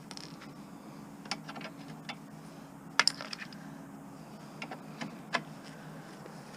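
Light metallic clinks and taps of hand tools against the lawn mower's metal parts during disassembly, scattered and irregular, the sharpest about three seconds in.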